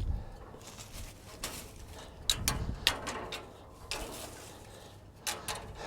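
Twigs and old pigeon nesting material being pulled and knocked off a tractor, giving irregular scrapes, rustles and sharp knocks, about five of them.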